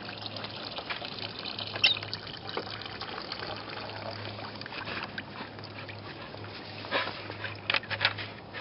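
Water trickling and splashing steadily. A few sharp clicks and knocks come over it, the loudest about two seconds in and a cluster near the end.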